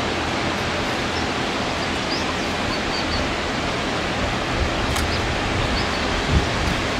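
Steady rushing noise, with a few faint high chirps and a click about five seconds in. A short low thump comes just after six seconds.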